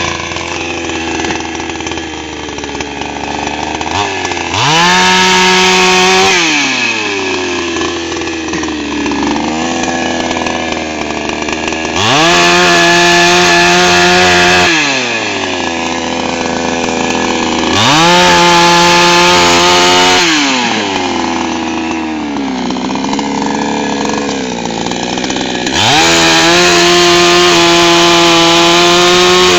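A SOLAX 5900 55cc two-stroke chainsaw idling and being revved up to full throttle four times. Each rev is held steady for a couple of seconds before the engine drops back to idle, and the last rev is still held at the end.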